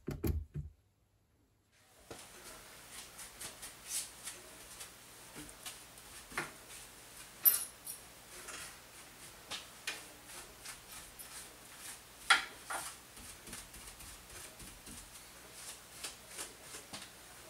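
Scattered small clicks, taps and light clatter of tools and parts being handled on a workbench, with two sharper clacks about seven and twelve seconds in. A short low thump comes at the very start.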